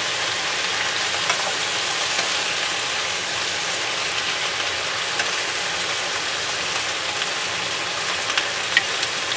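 Thin fried beef slices and onion rings sizzling steadily in a frying pan with soy sauce, turned with a wooden spatula that gives a few light clicks against the pan.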